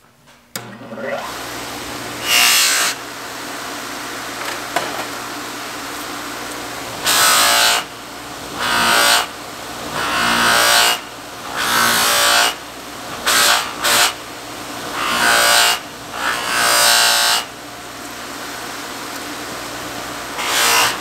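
Bench buffer motor starting about half a second in and then running with a steady hum, its spiral-sewn flannel wheel loaded with polishing compound. A steel knife blade is pressed against the spinning wheel in about ten short passes, each a loud hiss lasting up to about a second, buffing the blade to a finish.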